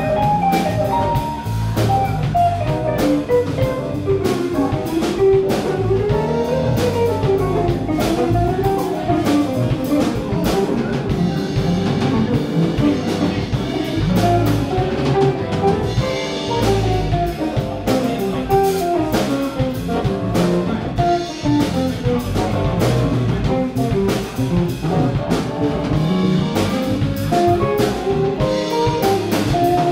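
Live jazz-funk band playing: drum kit and bass keep a steady funk groove under electric guitar and keyboard, with a melodic solo line running up and down over the top.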